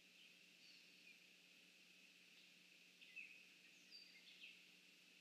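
Near silence: faint outdoor ambience with a few short, faint bird chirps, the loudest about three seconds in and a small cluster around four seconds, over a steady faint high-pitched background.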